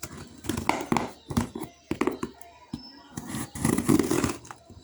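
A delivery package being handled and opened: a string of knocks and taps with rustling packaging, loudest near the end.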